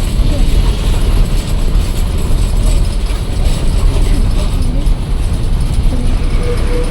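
Interior of a moving bus: steady, loud engine rumble with the body, seats and windows rattling as it drives along.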